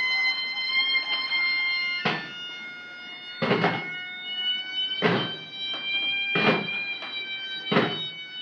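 Thai funeral ensemble: a pi chawa shawm holds a long, reedy high note with a few small shifts in pitch over klong chana barrel drums. There are five deep drum beats about a second and a half apart.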